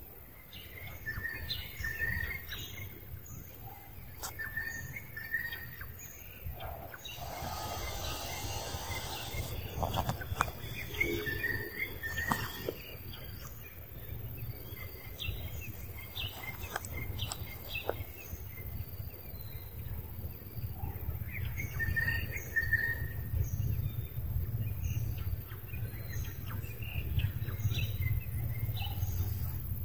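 Outdoor ambience of birds chirping in short repeated calls over a steady low rumble, with a brief noisy rustle about seven to nine seconds in and a few scattered clicks.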